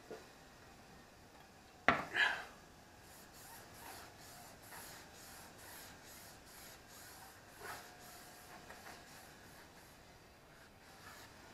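A rag damp with acetone is rubbed on a car tire's rubber sidewall in quick back-and-forth strokes, roughly two and a half a second, scrubbing the surface clean before lettering is glued on. About two seconds in there is a sharp knock with a brief rustle.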